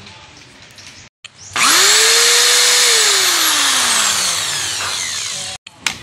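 Ingco corded electric drill with a 6 mm masonry bit, boring into the wall: about a second and a half in the motor speeds up, holds its pitch briefly, then slows with a steadily falling pitch. It lasts about four seconds and cuts off suddenly.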